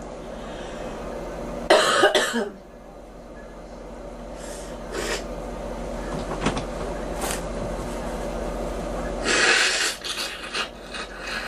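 A girl coughing: a burst of several quick coughs about two seconds in, and another coughing burst near the end.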